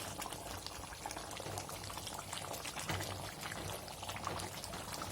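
Thick chicken curry bubbling in a hot bronze uruli, with many small irregular pops.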